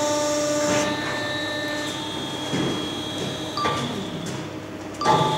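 Tilting bronze-melting furnace humming steadily with several held tones as it tips its crucible to pour molten bronze into a mould. A few short knocks and clatters come about two and a half, three and a half and five seconds in.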